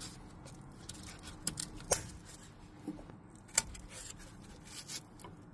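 Hand fitting the wiring-harness connector onto a 2018 Ford F450's ABS module: a few sharp plastic clicks with light scraping and handling as the plug is worked into place.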